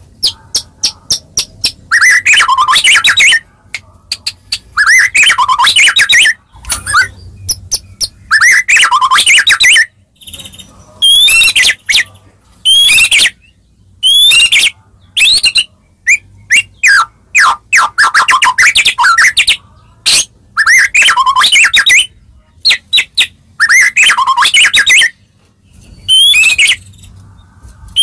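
White-rumped shama (murai batu) singing loudly. A quick run of clicking notes comes first, then repeated phrases of sweeping whistles and trills every one to three seconds. It is played as a lure song to get other shamas to answer.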